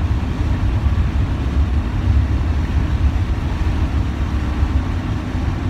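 Pickup truck driving, heard from inside the cab: a steady low rumble of engine and road noise.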